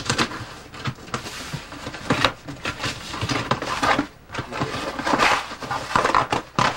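Packing material being handled and pulled out of a cardboard shipping box: a continual run of rustles, scrapes and light knocks.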